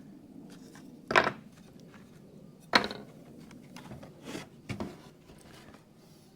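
Wooden shutter boards being handled on a workbench: two sharp wood knocks about a second apart, then a few softer knocks and rubbing.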